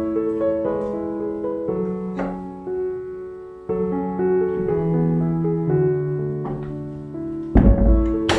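Background piano music. Near the end comes a low thump, followed by a sharp click.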